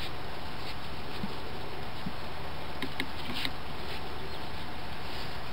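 Steady outdoor background noise with a few faint, short clicks scattered through the middle.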